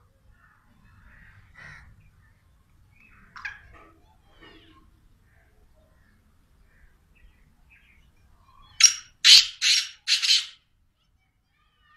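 Black francolin calling: four loud, harsh notes in quick succession, lasting about two seconds, about nine seconds in. Faint, soft chirps come before them.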